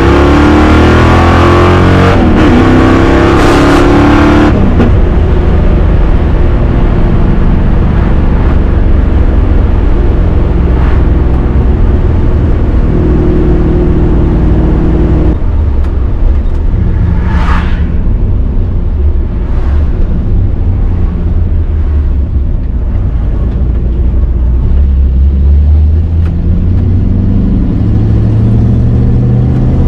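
Ford 302 V8 with Shelby GT350-style side-exit exhaust, heard from inside the cabin: pulling hard under acceleration with its note rising, then dropping sharply when the throttle is lifted about four seconds in. It runs at a steadier cruise with a brief whoosh midway, then its note climbs again near the end as it accelerates once more.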